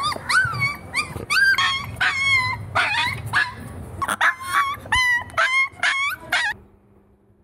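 Puppy giving a rapid string of high-pitched yips and yelps, about two or three a second, each call sliding in pitch; the calls stop abruptly about six and a half seconds in.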